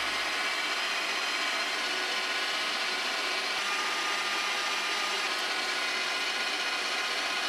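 Electric stand mixer running steadily at an even speed, beating creamed butter and sugar while egg yolks are added.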